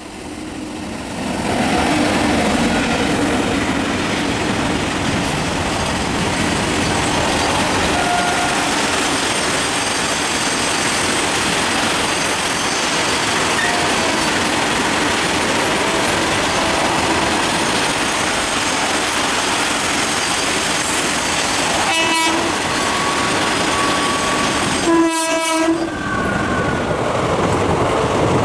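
Trains passing at speed: a steady rumble and rattle of wheels and coaches on the rails. A locomotive horn gives a short blast about 22 seconds in and a longer blast about three seconds later.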